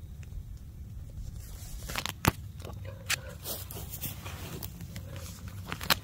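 Hands pressing a strip of tape along a tent's broken zipper: scattered rustling and scraping of tent fabric, with a couple of sharp clicks about two seconds in.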